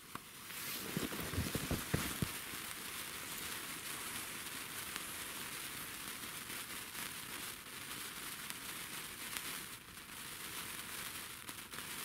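A sparkler burning with a steady fizzing hiss and fine crackle. A few low knocks come in the first two seconds as it catches.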